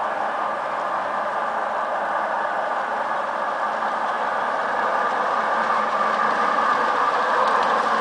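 Garden-scale model F7 diesel locomotive hauling a freight train on outdoor track, a steady running noise that grows slowly louder as the train approaches.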